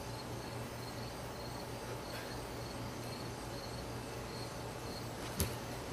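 A baseball bat strikes a dried soup bean once near the end with a single sharp click. Behind it, insects chirp in a steady, repeated pattern over a low hum.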